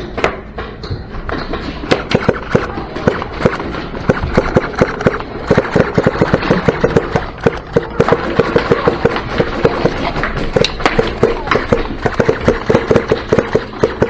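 Airsoft guns firing in rapid strings of shots, sharp cracks coming several to a second, thickest from about five seconds in.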